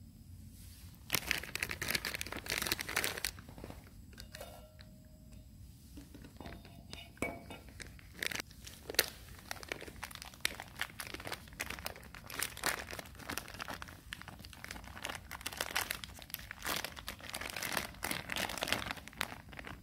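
Thin plastic food packaging of a packet of udon noodles crinkling and rustling as hands open it and work the clear inner bag. It starts about a second in and goes on in irregular crackly bursts.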